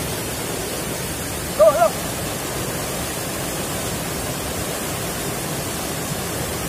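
Fast whitewater stream rushing over boulders, a steady, even roar of water. A short cry cuts through about one and a half seconds in.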